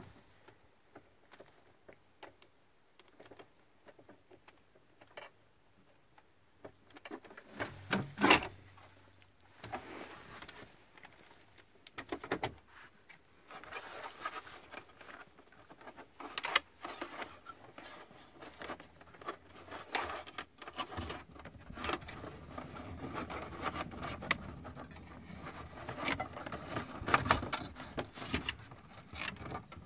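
A cable and plastic trim panels handled by hand: irregular clicks, scrapes and rustles, with a louder knock about eight seconds in and busier handling in the second half.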